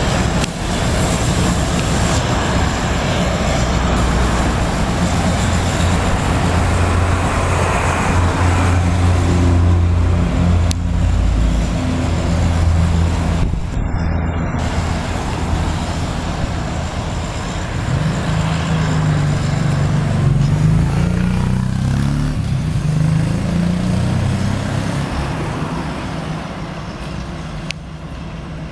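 Road traffic heard from a car in slow street traffic: steady engine and tyre noise, with a deep engine drone in the first half. An engine note climbs and then falls about two-thirds of the way in.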